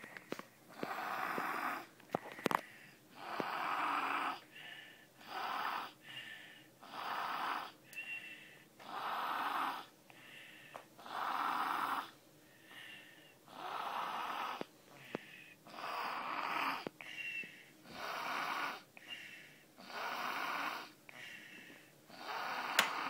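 Sick baby snoring in sleep: noisy breaths about every two seconds in a steady rhythm, some of them carrying a short high whistle.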